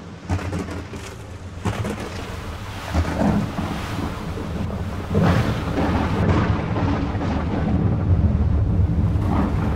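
Thunder cracking several times and rolling in a deep rumble over rain, growing louder through the stretch.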